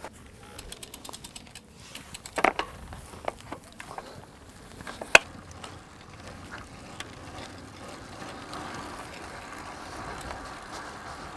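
Small clicks and knocks as puncture-repair bits and wrappers are gathered up off the grass, with a sharp click about five seconds in. Then a road bicycle is ridden away on tarmac, a steady soft rushing of tyres and air.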